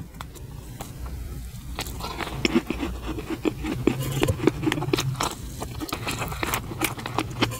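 Close-miked eating of a soft marshmallow: chewing with many irregular mouth clicks and smacks.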